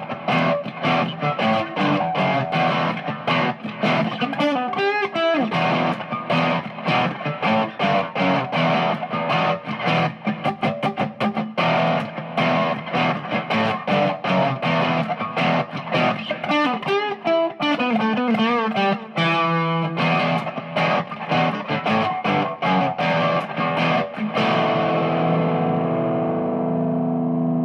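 Background music: distorted electric guitar playing fast picked riffs, ending on a held chord.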